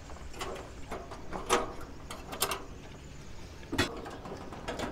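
Stainless-steel parts of a Magma Chefsmate gas grill knocking and clicking as they are fitted back in by hand: a handful of sharp knocks, the loudest about a second and a half in and again near the end.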